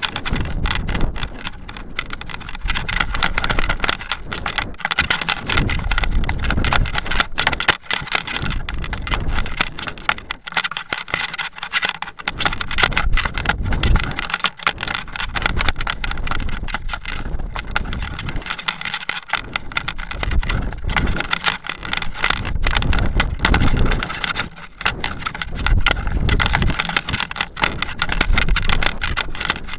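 Wind rushing and buffeting over the microphone of a camera riding on a descending model rocket, with frequent clicks and rattles and constant rises and falls in loudness.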